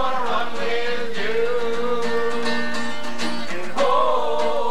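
Acoustic guitar strummed as accompaniment to singing, a song with one long held sung note in the middle.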